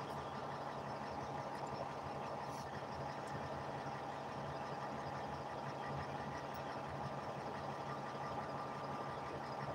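Heavy machine's engine idling steadily, heard from inside its cab.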